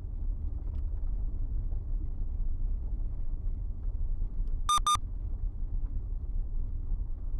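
Steady low rumble of a car driving on a gravel road, heard inside the car through the dashcam's microphone. A little after the middle come two quick high-pitched electronic beeps, a dashcam warning alert.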